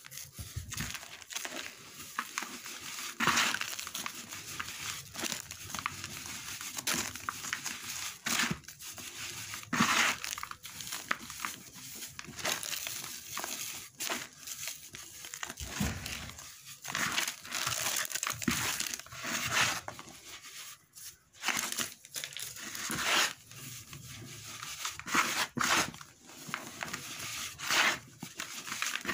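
Dry sand-and-cement mix crumbled and rubbed between the hands: gritty crunching and rustling that comes in repeated uneven surges.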